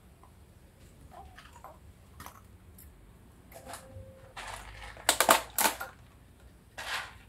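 Small clear plastic tub and lid being handled: scattered light clicks, then a loud cluster of clicks and clatters about five seconds in and another near the end. Wood-shaving bedding rustles faintly under a hand early on.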